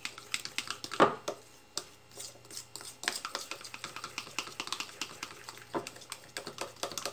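A spoon stirring thick condensed milk and lime juice in a mug, clinking and scraping against the sides in quick, irregular ticks, with one louder knock about a second in.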